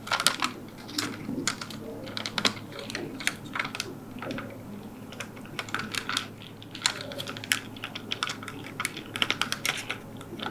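Typewriter keys clacking, struck by a monkey in quick, uneven runs of clicks.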